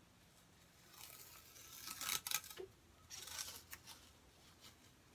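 Masking tape being peeled off the painted wood of a didgeridoo: a longer crackling pull starting about a second in, then a shorter one around three seconds in.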